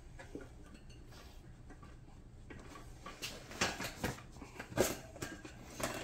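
Metal tire irons clinking and knocking against a dirt bike wheel rim as the tire bead is levered back out. It starts quiet, then there are several sharp clinks and knocks over the last three seconds.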